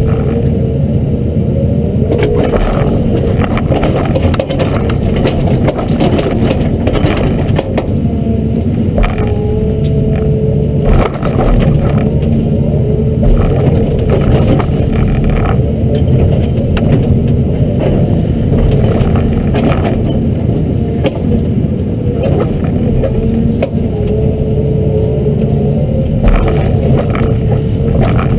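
Hyundai R210 LC-7 excavator's diesel engine running steadily under load, with a hydraulic whine that comes and goes in short stretches as the boom and rake work. Over it come repeated knocks, clatters and scraping from the rake and thumb pushing and gripping willow brush.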